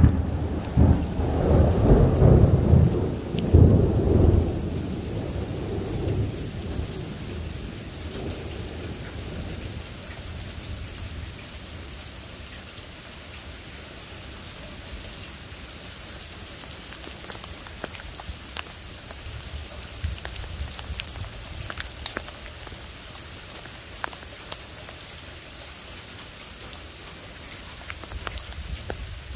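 Thunder rumbling loudly in the first seconds, with a second peak about four seconds in, and dying away by about eight seconds. Then steady rain falling on the ground, with scattered drips.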